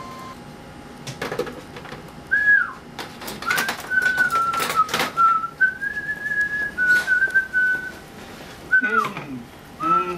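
A person whistling a slow tune: clear single notes held and sliding between pitches, with a falling slide near the end. Several sharp clicks and knocks sound over the whistling.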